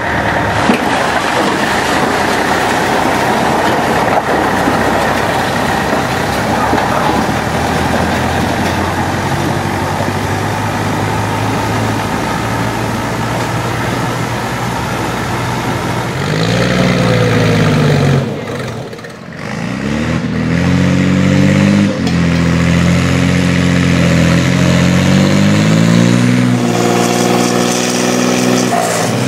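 Vintage tractor engine labouring under load while pulling a weight sled, its revs falling and climbing again several times in the second half.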